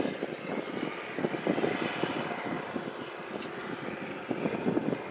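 Cat Challenger MT765C rubber-tracked tractor's diesel engine running steadily under load as it pulls a Simba cultivator through the soil, with an uneven rattle over the engine.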